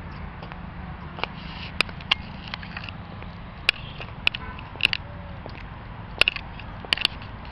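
Footsteps on a paved stone path: sharp, irregular clicks, some in quick pairs, over a steady low background rumble.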